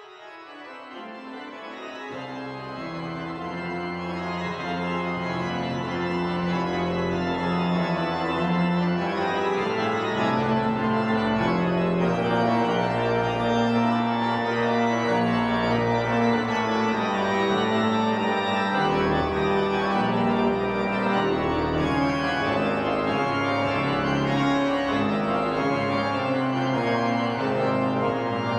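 Pipe organ playing a full chordal passage, with sustained chords over low bass notes from the pedals. It swells up from quiet over the first few seconds and then holds loud and steady.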